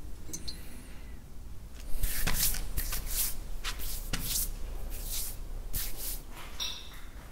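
A quick run of short, hissing swishes, around a dozen of them, starting about two seconds in and going on for some four seconds.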